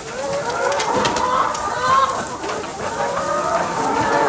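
A flock of chickens clucking and calling over one another as they crowd in to feed on thrown papaya.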